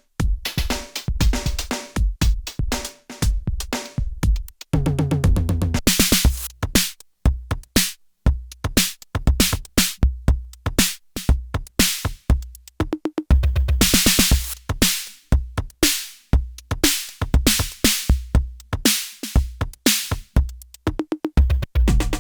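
IK Multimedia UNO Drum, a hybrid analog and PCM drum machine, playing a programmed beat: kicks, snare and hi-hats in a steady rhythm, with two longer bright noisy hits along the way.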